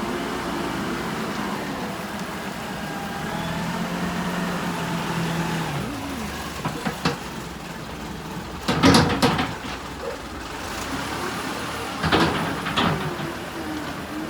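Wheel loader's engine running, its pitch rising and falling, with loud knocks twice, about nine seconds in and again near twelve seconds.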